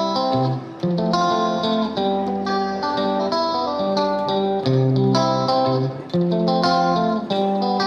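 Background music led by a plucked guitar, with a melody of notes that change about every half second over a steady chord accompaniment.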